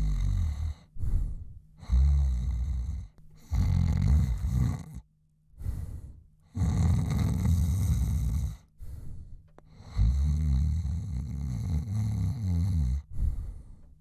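A man snoring: a run of low snores of uneven length, some long and some short, with short quiet pauses between them.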